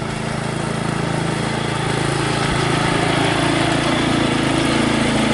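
Predator 173cc overhead-valve engine, newly fitted to a John Deere 56 mower, running steadily. It gets a little louder over the first couple of seconds, then holds an even note.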